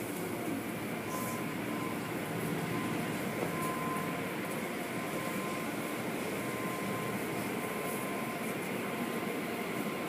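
Automatic car wash working on the car, heard from inside the cabin: a steady wash of water spray and machinery noise, with a faint steady whine joining about a second in.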